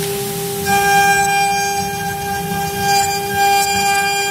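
CNC wood-carving router spindle running with a steady high whine over a low rumble as it carves a wooden relief panel. Its upper overtones come in stronger a little under a second in.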